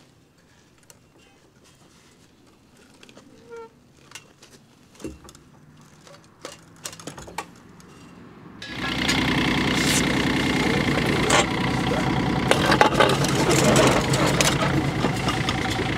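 A few faint knocks and clicks, then about halfway through the O&K RH 1.17 mini excavator's engine is suddenly heard running steadily, with metal knocks and clanks over it.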